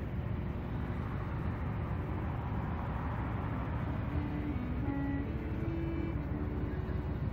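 Steady rumble of road traffic, swelling in the middle as a vehicle passes, with a few faint short tones in the second half.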